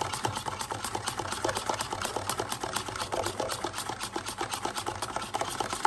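A spoon stirring quickly in a plastic cup, giving a fast, even run of small scrapes and clicks against the cup's sides.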